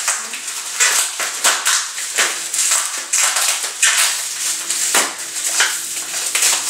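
Bubble wrap crinkling and rustling as a package is unwrapped by hand, with irregular crackles and rips.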